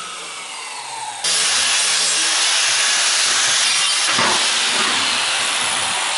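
A DeWalt abrasive chop saw's motor winding down with a falling whine. About a second in, an angle grinder with a diamond wheel cuts in, grinding a score line into steel flat bar with a steady, loud hiss.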